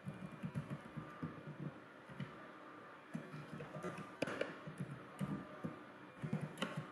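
Computer keyboard typing: a quick, irregular run of key taps, with a few sharper clicks.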